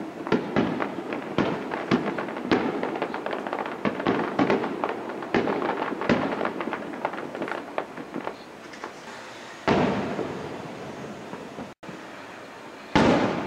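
Aerial fireworks going off: a rapid run of sharp bangs, several a second, for the first eight seconds or so, then single loud booms with a lingering tail about ten seconds in and again near the end.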